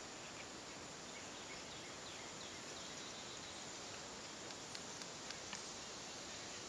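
Faint scraping of a knife blade shaving a magnesium fire bar, with a few light clicks later on, over a steady outdoor background hiss.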